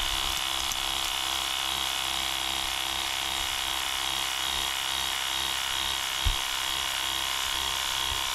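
Ingco 20 V cordless pressure washer running steadily: the pump motor's high whine with the hiss of the water jet spraying onto wooden boards. One brief thump about six seconds in.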